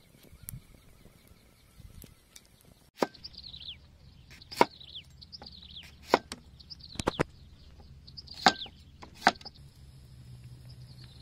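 Large knife chopping cucumbers on a wooden cutting board: about seven sharp, irregularly spaced chops, starting about three seconds in.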